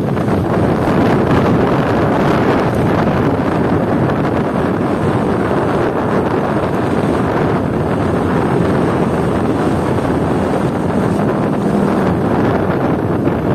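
Wind rushing over a phone's microphone on a moving motorcycle, a loud, steady buffeting roar that hides the bike's own engine.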